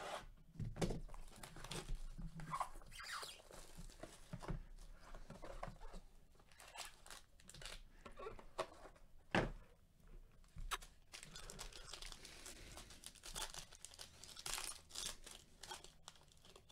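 Faint handling of a sealed trading-card box and its foil pack: a blade slitting the box seal, then scattered crinkling, light clicks and tearing as the foil wrapper is handled and torn open.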